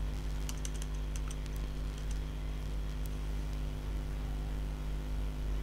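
Computer keyboard keys clicking: a quick run of keypresses about half a second in, then a few single clicks, over a steady low electrical hum.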